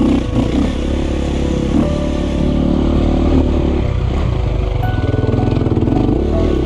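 KTM 350 dirt bike's four-stroke single-cylinder engine running under the rider, its note rising and falling with the throttle at trail speed.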